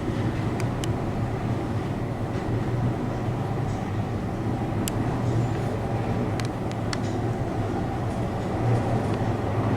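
Passenger lift car travelling, a steady low hum and rumble of the ride with a few light clicks and rattles.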